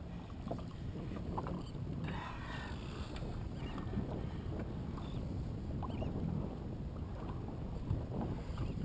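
Choppy water lapping and slapping against the hull of a small open boat, over a steady low rumble.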